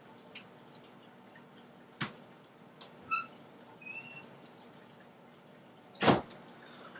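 A quiet room with a person's stifled laughter: a few brief, high squeaks. There is a sharp click about two seconds in and a louder knock near the end.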